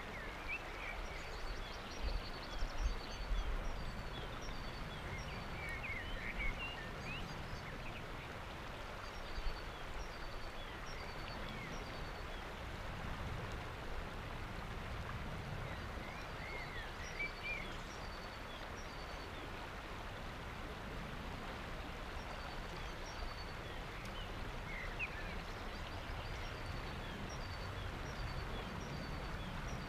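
Lech river water flowing past and lapping against a rock shelf, a steady rush, with small birds chirping now and then. A few brief low rumbles come a few seconds in.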